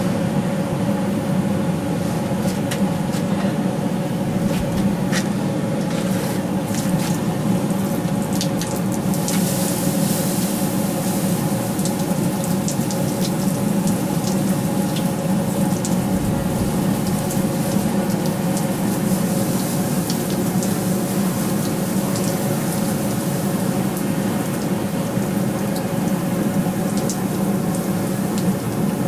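Forge-shop equipment running steadily: a continuous roar with a low hum, and a few light clicks between about five and ten seconds in.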